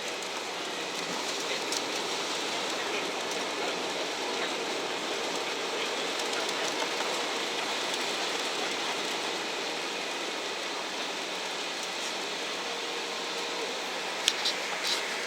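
Steady rushing cabin noise of a jet airliner in flight on the approach to landing, with a few sharp clicks near the end.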